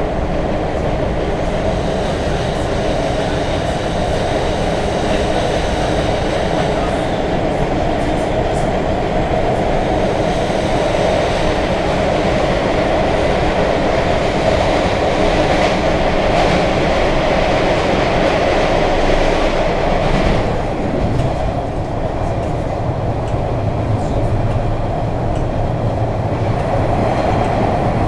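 MBTA Red Line subway train running at speed, heard from inside the car: a steady rumble of the wheels on the rails. About twenty seconds in, the higher hiss drops away and a low hum comes up.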